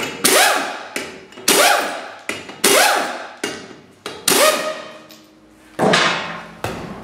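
Half-inch impact wrench with a 19 mm deep socket spinning lug nuts off a car wheel in five short bursts about a second apart. Each burst whirs up and falls away in pitch as a nut breaks loose and spins off.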